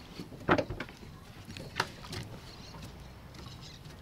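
Handling gear in an inflatable dinghy while a cast net is gathered up: two sharp knocks, the louder about half a second in and another near two seconds, with a few lighter clicks between.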